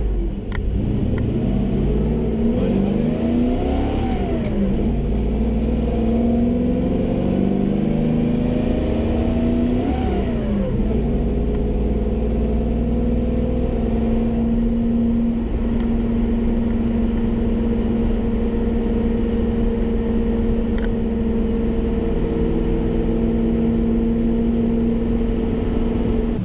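The 8.1-litre Vortec 8100 V8 of a 1980 Chevy C30 rollback truck accelerating on the road. Its pitch climbs and then drops twice, about four and ten seconds in, as it shifts up, then holds steady at cruising speed.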